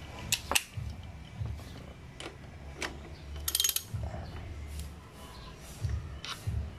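Ratchet wrench with a 14 mm socket clicking and knocking as it is fitted onto a motorcycle front brake caliper's mounting bolt, with a short run of rapid ratchet clicks about halfway through.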